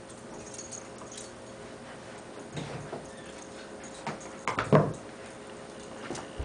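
Mostly quiet room with a faint steady hum, and a few brief soft knocks and scuffles from a standard poodle moving on carpet and setting a toy ring down. The loudest of these comes about four and a half seconds in.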